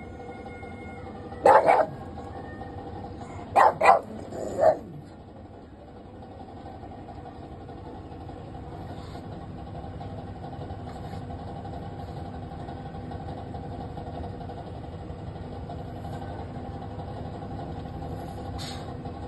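Pug barking: several short, sharp barks in the first five seconds, then one fainter bark near the end, over a steady low hum.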